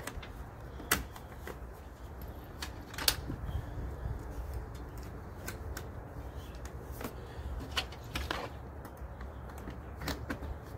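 Scattered clicks and knocks of pins and latches being fitted to lock down the lid of a small motorcycle camping trailer, the sharpest about three seconds in, over a low steady rumble.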